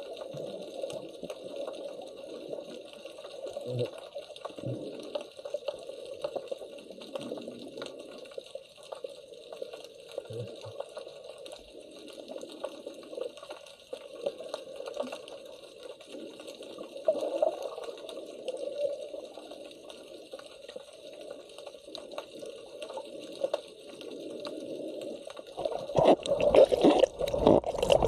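Muffled underwater water noise from a submerged camera, steady throughout. Near the end it turns louder and rougher with splashing and bubbling as a snorkeler duck-dives beside the camera.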